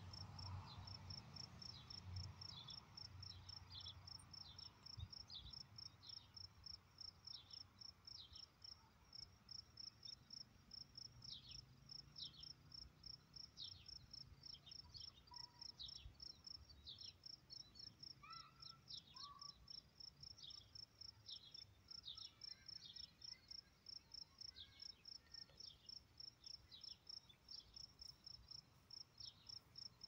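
Faint crickets chirping in a steady, rapid, high-pitched pulse, with short falling chirps over it and a few lower chirps about two-thirds of the way in.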